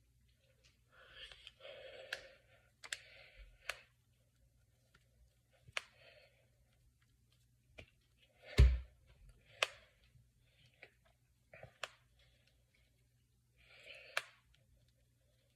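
Finger and knuckle joints cracking: a series of sharp pops, about eight or nine spread through the stretch, the loudest a little past halfway with a dull thump under it. Short soft rustling noises come between the pops.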